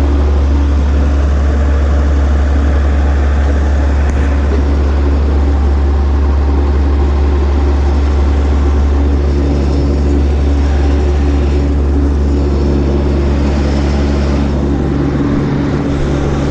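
Tractor engine running steadily under load while powering mowers through grass, a constant low drone with steady engine tones.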